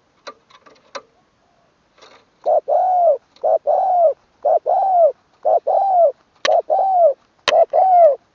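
Decoy spotted dove cooing repeatedly: six or so calls about a second apart, each a short note followed by a longer arched coo, starting about two and a half seconds in. A few sharp clicks come in the first second, and two more fall among the later coos.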